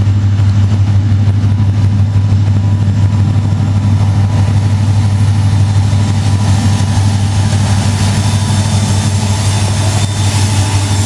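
Diesel locomotives of a freight train approaching under power, a loud steady low engine drone; wheel and rail noise builds near the end as the locomotives come past.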